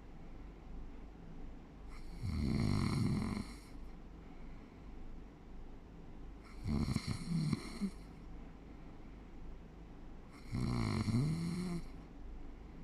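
A sleeping person snoring: three snores about four seconds apart, each lasting a little over a second.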